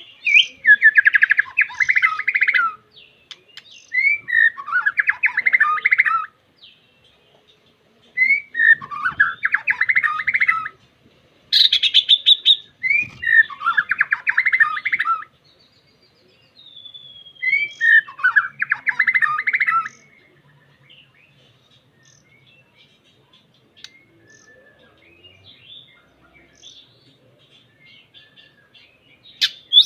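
White-rumped shama (murai batu) singing loudly at a rival: five fast chattering phrases about every four seconds, each opening with a rising note, with one short higher burst among them. Over roughly the last ten seconds only faint scattered notes remain.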